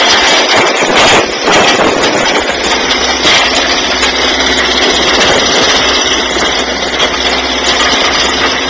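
Motorboat engine running steadily under a loud, even rushing noise.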